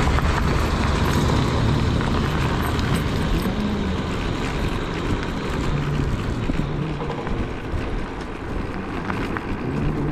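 Steady wind and road rumble from riding a Zero 10X electric scooter.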